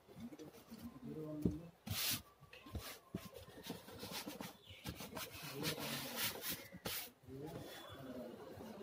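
Hands rubbing and scuffing against a black leather-look seat cover as it is pressed and pulled over the seat padding, in short irregular rustles, with faint voices in the background.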